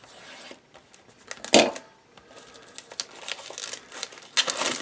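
Packaging rustling and crinkling as a trading-card hobby box is handled, with a few sharp clicks and louder bursts about a second and a half in and again near the end.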